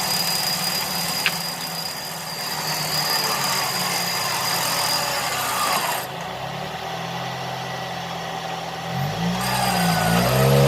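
Off-road 4x4 vehicle engine running under load on a rough track, with the engine revving up and down near the end.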